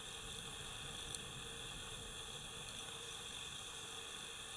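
Faint steady hiss with a low hum and a few constant high tones, with no distinct event; the elephants make no audible sound.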